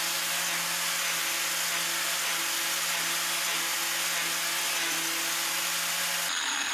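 Angle grinder mounted on an Elliott 10M shaper, grinding a hardened steel roller at a heavy 6 thou depth of cut: a steady grinding hiss over a motor hum that stops abruptly near the end. The owner judges the cut a bit too much for the grinder.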